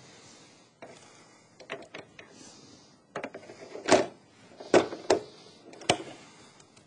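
A metal server module being handled: a series of sharp clicks and knocks of sheet metal being set down, pressed and shifted, the loudest about four seconds in.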